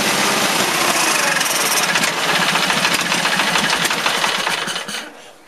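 Case lawn tractor's 20 hp Onan two-cylinder engine running on gas primed down the carburetor, then dying out about five seconds in. The owners think the carburetor, unused for about two years, may need cleaning or a rebuild, or the fuel pump may be weak.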